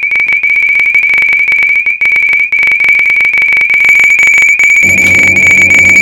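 Fire alarm sounding a loud, continuous high-pitched tone. About five seconds in, a lower humming sound joins it.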